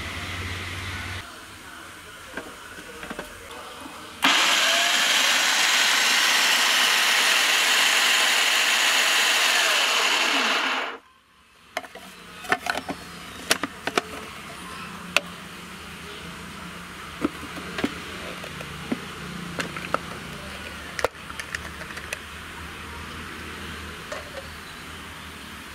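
Electric food processor running for about seven seconds, its blade mincing pieces of ginger, then switched off about eleven seconds in, the motor falling in pitch as it stops. A scatter of light clicks and knocks follows.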